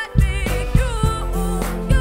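Live band playing an afrobeats and R&B song: female vocals singing a wavering, ornamented line over bass guitar and sharp percussive hits.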